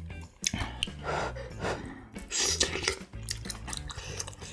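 Close-miked eating: chewing and mouth sounds, with short clicks of utensils against dishes and a louder crunchy or slurpy burst about two and a half seconds in.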